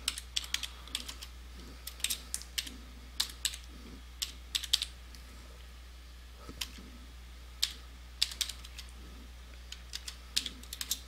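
Computer keyboard being typed on: irregular keystroke clicks, singly and in quick clusters, with short pauses between words, over a low steady hum.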